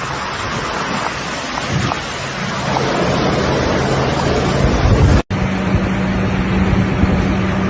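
Steady rushing noise of floodwater with wind on the microphone. Partway through it cuts off abruptly, and a steady low hum comes in under the noise.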